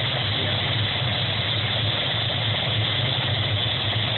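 NOTAR police helicopter's turbine engine and rotor running steadily at ground idle after landing, a constant hum with dense noise above it.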